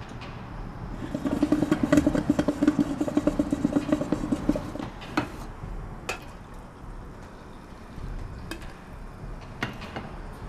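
Drip coffee maker gurgling and sputtering as it brews: a loud rattling buzz for about four seconds, then a few sharp single clicks.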